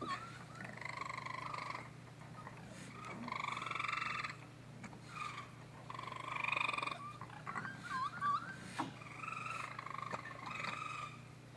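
Baby raccoons crying: a series of drawn-out, wavering, buzzy calls about a second long, repeated every few seconds, with short curling chirps between them.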